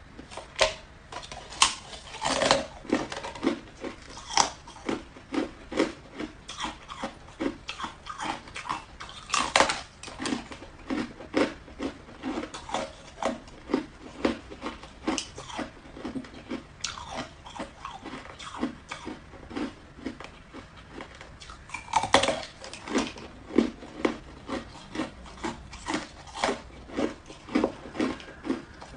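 Hard Coke ice being bitten and chewed close to the microphone: a steady run of sharp crunches, about two a second, with a few louder bites now and then.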